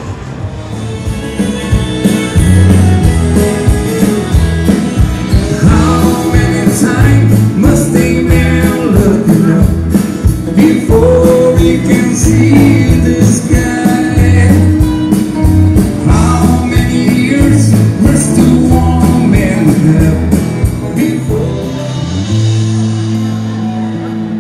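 A live rock band playing, with a singer, and drums keeping a steady beat over bass notes. It gets louder about two seconds in and eases off near the end.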